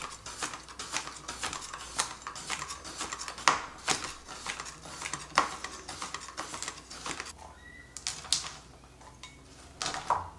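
Chef's knife chopping baby cucumbers on a cutting board: a quick run of knife strikes, two or three a second, that thins out about seven seconds in.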